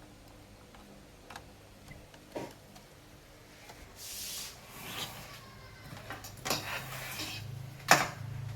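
Clicks, knocks and scraping of parts and tools being handled, with one sharp click about eight seconds in that is the loudest sound. A low hum comes up over the last couple of seconds.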